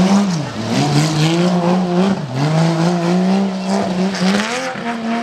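Porsche 911 rally car's air-cooled flat-six revving hard on a loose dirt stage. Its pitch climbs, drops sharply about half a second in and again about two seconds in as the revs fall, then rises to a steadier, higher note near the end.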